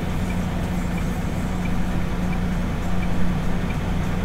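MAN TGX truck's diesel engine idling steadily while stationary, heard from inside the cab. A faint tick repeats about every two-thirds of a second.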